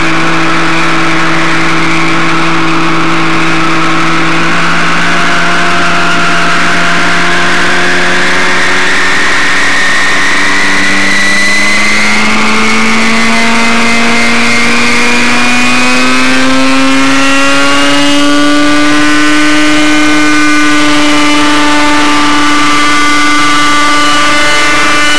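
Nitro (glow) engine of an RC helicopter running loud, its pitch steady at first, then climbing smoothly over about ten seconds as it is throttled up and the rotor head spools up, then holding at the higher pitch as the helicopter hovers.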